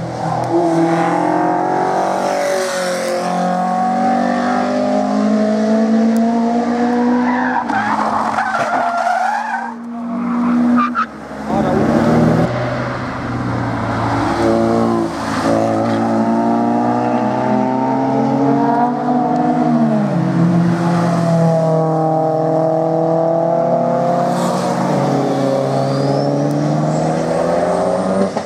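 Several sports cars driven hard past the trackside one after another, engines revving up and down through gear changes and passing by. The sound breaks off abruptly about ten seconds in, and the next car's engine takes over.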